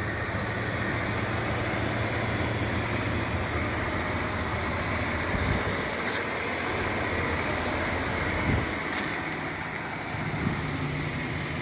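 A Chevrolet Silverado 2500HD's Duramax diesel V8 idling steadily.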